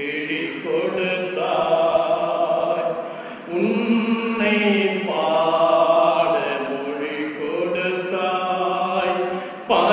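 A man singing a slow prayer chant, drawing out long held notes that slide from one pitch into the next.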